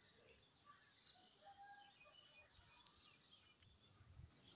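Near silence with faint, scattered bird chirps, short high calls, and a single sharp click about three and a half seconds in.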